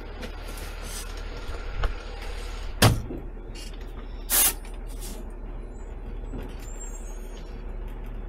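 Diesel engine of an automated side-load garbage truck idling, heard from inside the cab. A small knock comes about two seconds in, then the cab door slams shut with a sharp bang about three seconds in, and a short burst of air hisses from the brakes a little after four seconds.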